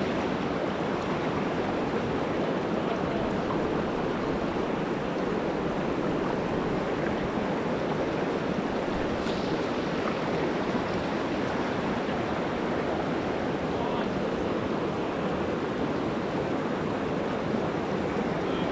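Shallow river water rushing over stones and boulders, a steady even wash.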